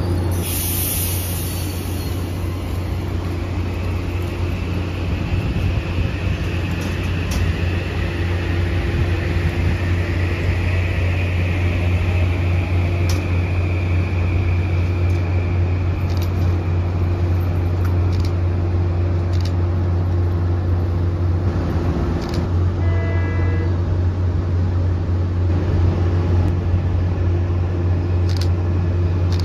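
Metro-North M8 electric train running out of the station: a steady low hum throughout, with a faint whine that rises and then fades over the first ten seconds. Scattered clicks of wheels over rail joints run through it, and a brief tone comes about twenty-three seconds in.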